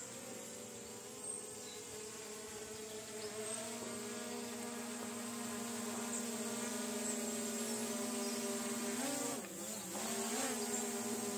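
DJI Mini 3 Pro quadcopter's propellers buzzing in flight, a steady hum that grows louder as the drone comes closer. About nine seconds in, the pitch dips and comes back up twice as the motors change speed.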